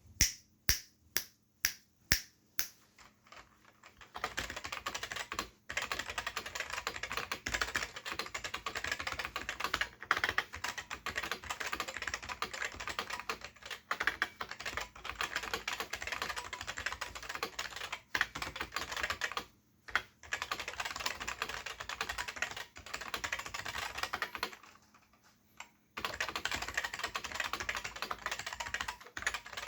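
Sejin SKM-2000 keyboard with Futaba MA switches and ABS keycaps being typed on: about six single, separate keystrokes at first, then fast continuous typing broken by a few short pauses.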